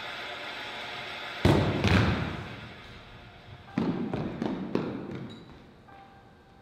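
A steady hiss, then two loud thuds about a second and a half in, followed by three or four more thuds a couple of seconds later, each ringing briefly in a large hall.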